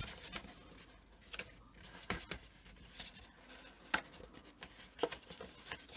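Faint rustling of cardstock as a taped card strip is pressed around the inside of a paper gift bag, with a few light clicks and taps scattered through.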